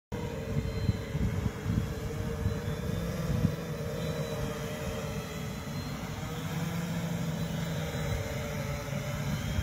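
Small electric motors spinning an overlapped propeller rig, a steady whine with a slightly wavering pitch over a low rumble, starting abruptly.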